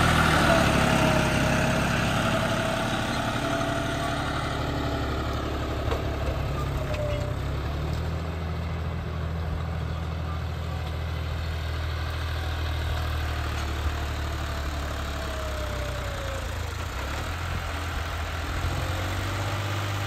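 Tractor diesel engine running steadily with a low, even hum, a little louder over the first few seconds and then level.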